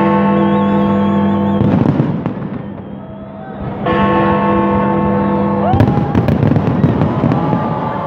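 Fireworks exploding over a loud music soundtrack: long held chords sound twice, with bangs rumbling between them. From about six seconds in comes a dense run of sharp crackling reports.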